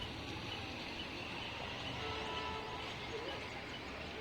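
Outdoor background of a steady low rumble with birds chirping.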